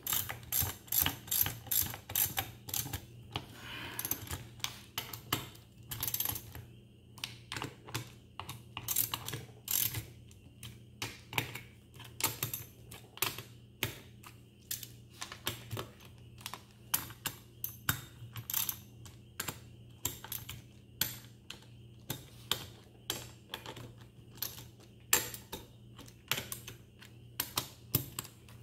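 Ratchet wrench clicking in quick runs, with short pauses between, as the transmission's case bolts are snugged down one after another. A low steady hum lies underneath.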